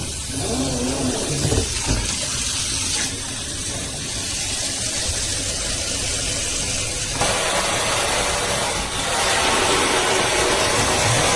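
Water running from a SOEBIZ pull-down kitchen faucet into the sink, a steady hiss that gets louder and fuller about seven seconds in.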